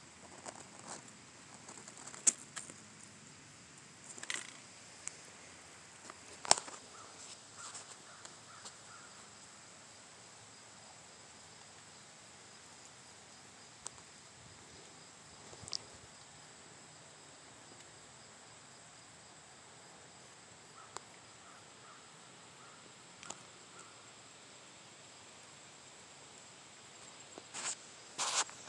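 Quiet rural outdoor ambience: a steady high-pitched insect trill, scattered sharp clicks and rustles from handling in dry leaves, and two short runs of faint distant calls.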